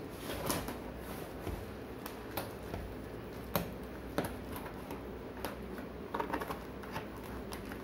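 Scissors cutting open a taped cardboard carton along its top edge: a series of sharp, irregular snips and crunches.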